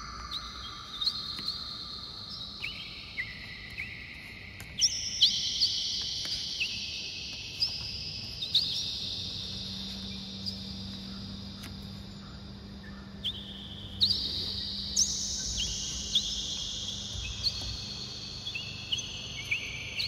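Chimes ringing: high, bell-like notes struck at irregular moments, several a few seconds, each ringing on for several seconds and overlapping the next.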